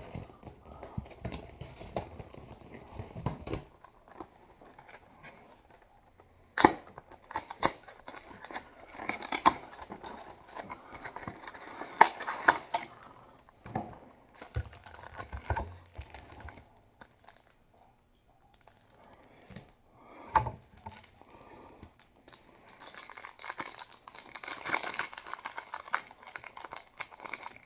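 Packaging of a Yu-Gi-Oh! Magnificent Mavens booster display being torn open and handled: irregular crinkling of plastic and foil wrap with several sharp rips, and a dense spell of crinkling near the end.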